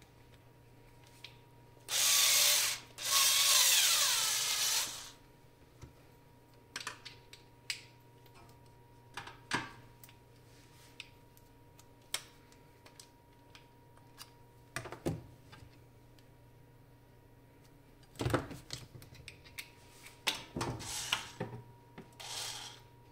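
Small power screwdriver running in short bursts, twice in a row about two seconds in and again several times near the end, its pitch swinging as it turns. In between come scattered clicks and taps of parts being handled.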